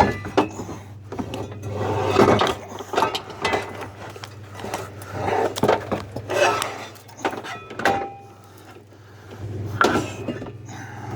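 Heavy metal exercise equipment being handled: irregular clanks, knocks and scrapes, with a few brief metallic rings.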